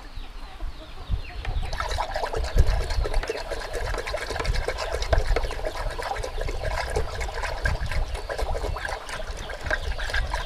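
Liquid pouring and splashing steadily into a plastic tub of water, starting about two seconds in. It is the strained soak water from catfish and chicken feed being added to the water.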